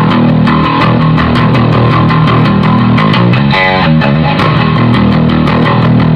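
Electric bass guitar through an Ampeg bass amp with a thick, crunchy overdriven tone, playing a fast, steady stream of notes.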